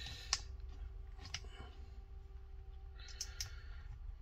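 Faint, scattered clicks of a plastic opening pick working along the edge of a Samsung Tab S2's back cover as it is pried off. There is a short scrape about three seconds in.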